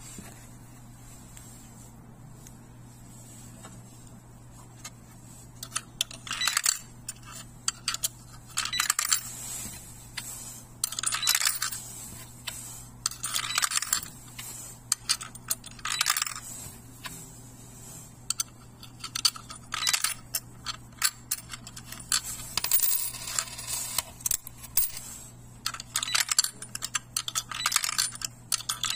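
Quarters dropped one at a time into a programmable electronic coin acceptor, each coin clicking and clattering through the mechanism, one every two or three seconds after the first few seconds, over a faint steady low hum. The acceptor is being taught the quarter by feeding it a run of sample coins.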